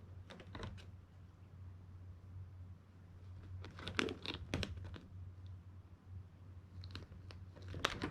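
Kittens' claws scratching and scrabbling at a fabric roller blind, with rustling, in three short flurries of quick scratches and taps, about half a second in, around four seconds in and near the end.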